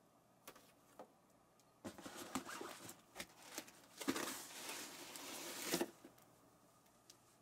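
Packaging being handled and opened by hand: a few small clicks, then a stretch of rustling, crinkling and scraping with scattered clicks, which stops about a second before the end.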